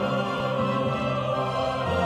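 Symphony orchestra playing classical music, with an operatic singing voice.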